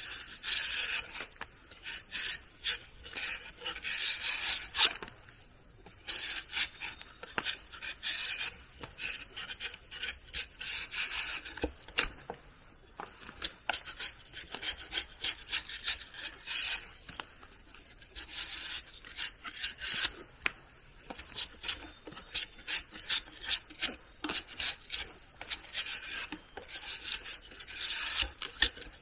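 A hand tool working wood in repeated scraping strokes, each about half a second to a second long, with many short sharp clicks between them.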